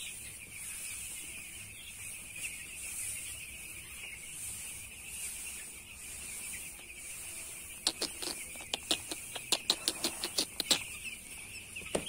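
A flock of 8-day-old broiler chicks peeping together in a steady, high chorus. Near the end a quick run of sharp clicks or taps lasts about three seconds.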